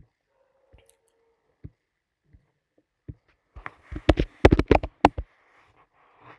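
Computer keyboard typing: a quick run of sharp key clicks about four seconds in, after a few scattered single clicks.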